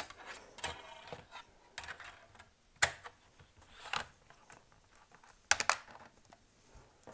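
A series of sharp clicks and taps, about one a second, with a quick double click about five and a half seconds in.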